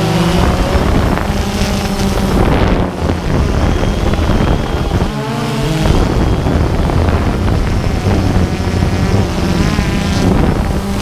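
DJI Phantom 2 quadcopter's electric motors and propellers droning, heard from the camera on the drone, with wind buffeting the microphone. The pitch shifts about five seconds in as the motors change speed.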